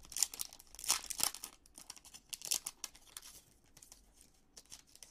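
Foil wrapper of a Topps Chrome trading-card pack being torn open and crinkled by hand: a run of sharp crackles, loudest in the first three seconds, then trailing off into softer crinkling.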